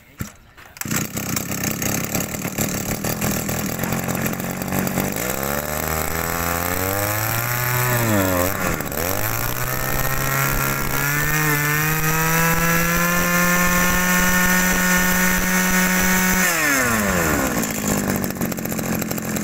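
Zenoah Komatsu G2K two-stroke brush-cutter engine starts about a second in and idles, then is revved up twice. The first rev rises and falls within a few seconds; the second is held at high speed for about six seconds before the engine drops back to idle.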